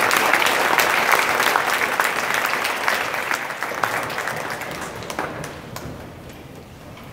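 Audience applauding, loudest at first, then thinning out and dying away about six seconds in.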